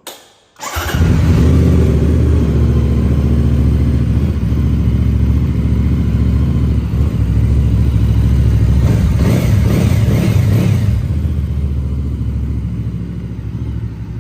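Benda Black Flag 500 V4 motorcycle engine starting up about a second in and running loud, with its exhaust note rising in a few revs around the middle before easing back toward idle near the end.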